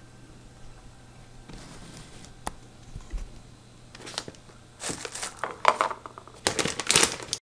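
Rustling and crinkling handling noise, faint at first, with a single sharp click about two and a half seconds in, then a run of louder crackly bursts over the last three seconds.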